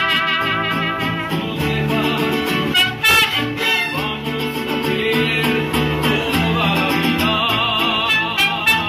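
Mariachi band playing live, with trumpets and violins carrying the melody over strummed guitars and a bass line.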